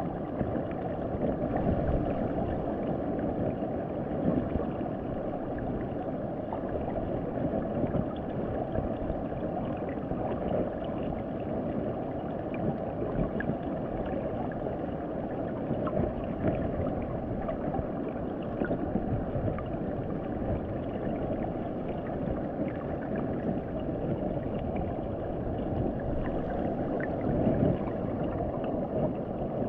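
Muffled underwater sound from a submerged camera: a steady low rush of moving water with faint scattered clicks.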